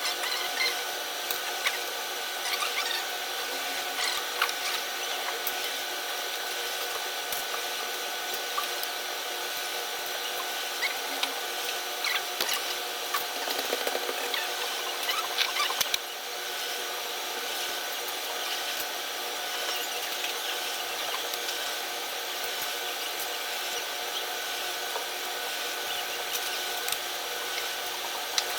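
A steady mechanical whir made of several fixed tones, with scattered small clicks throughout.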